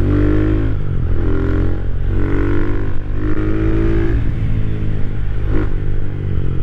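Rusi Classic 250's single-cylinder LX166FMM engine under way on the road, its pitch climbing and dropping back several times as the rider works the throttle. A short clatter sounds about five and a half seconds in.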